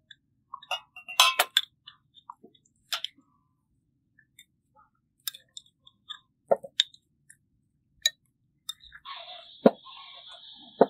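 Scattered clinks and light taps of glass tea cups, a glass teapot and spoons on a serving tray. The loudest is a sharp clink near the end as the lid goes back on the glass teapot, followed by a steady high-pitched sound.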